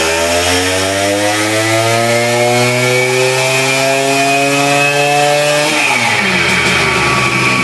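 Tuned Simson two-stroke moped engine with a 130 cc cylinder and auxiliary exhaust ports, driving the roller of a dyno during a power run. Its pitch climbs steadily for about six seconds, then the throttle closes and the revs fall away.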